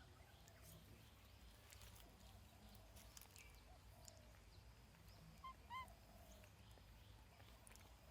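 Near silence with faint outdoor background; two brief, high-pitched animal calls come close together a little past the middle.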